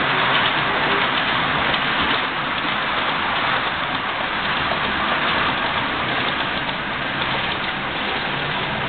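00 gauge model train running along the track: the steady hiss and rumble of its wheels and motor on the rails.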